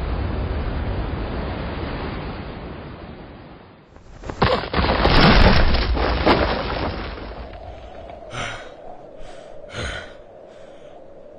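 Animated fight sound effects: the rumble of a big explosion dies away. About four seconds in comes a loud crash with tumbling impacts as a body slams into the ground. Near the end there are a few short gasping breaths.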